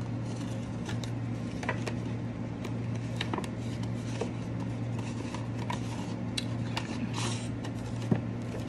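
A paper envelope being opened by hand: scattered rustling, crinkling and small paper clicks, with a short papery rasp about seven seconds in and a sharp tick near the end, over a steady low hum.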